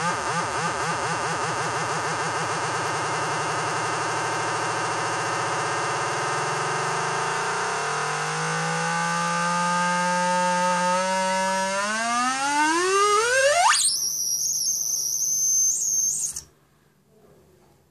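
Homemade tone generator played through a loudspeaker: a low-frequency sine oscillator modulating a variable-frequency oscillator. The buzzy tone warbles rapidly up and down in pitch, the warble slows until the tone holds steady, then it glides sharply upward into a very high whistle that cuts off suddenly near the end.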